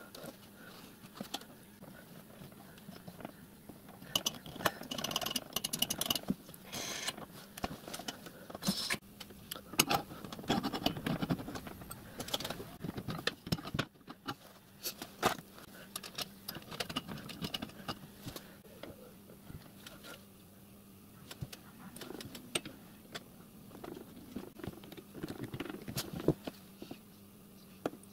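Irregular light metallic clinks, taps and scrapes of hand tools and small steel brake parts being fitted by hand to a miniature railway riding car's steel frame, over a faint steady hum.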